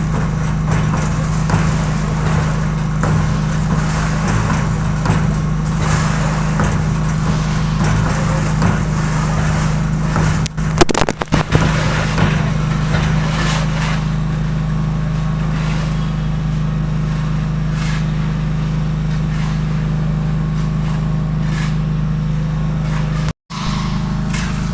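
Homemade concrete mixer running with a steady motor hum, and gritty scraping and crackling as concrete churns in the drum. The sound breaks off briefly about eleven seconds in and again near the end.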